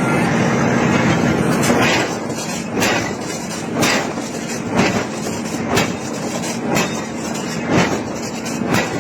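Heavy forging hammer blows on iron, about one a second, starting a couple of seconds in, over a steady machine hum.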